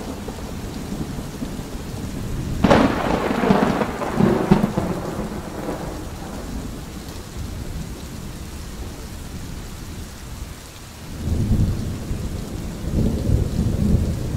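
Thunderstorm: steady rain with a sharp clap of thunder about three seconds in that rumbles off over a couple of seconds. Two more low rolls of thunder come near the end.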